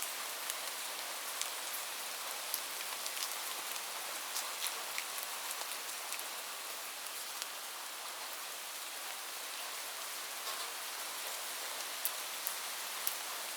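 Steady rain falling on a surface, a continuous hiss with many separate drops ticking sharply on top.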